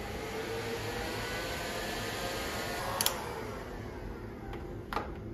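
Handheld electric heat gun running, its fan blowing with a steady whirring hiss and a faint whine, aimed at a soldered balance-lead wire joint. A sharp click comes about three seconds in and another knock near the end.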